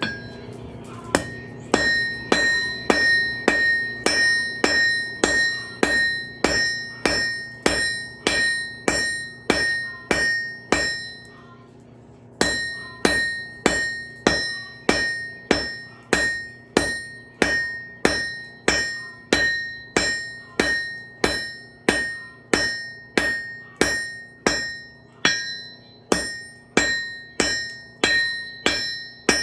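Hammer blows on an anvil, forging a railroad spike: a steady rhythm of about two strikes a second, each with a bright metallic ring, broken by a short pause about midway.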